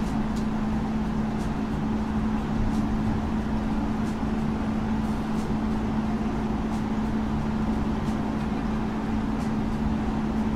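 Steady machine hum with a constant low tone, with a few faint clicks over it.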